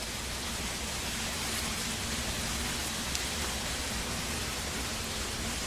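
Steady, even hiss of background noise with no clear events, and one faint tick about three seconds in.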